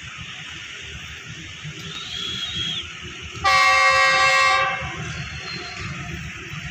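Horn of an approaching Pakistan Railways GE U40 diesel-electric locomotive, sounded once as a single loud blast of about a second and a half that starts sharply about halfway through. A steady background hiss runs under it.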